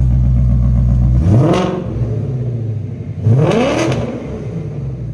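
Ford Mustang GT's Coyote 5.0 L V8, breathing through freshly fitted Kooks headers, high-flow cats and an X-pipe, idles and is then revved twice, about a second in and again about two seconds later, each rev a quick rise in pitch that drops back to idle.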